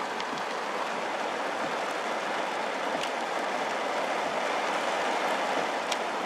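Heavy downpour of rain, a steady hiss with a few faint ticks of drops striking something close by.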